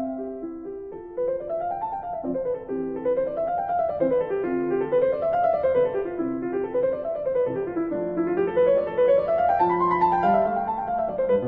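Piano music: quick runs of notes climbing and falling again and again over held lower notes.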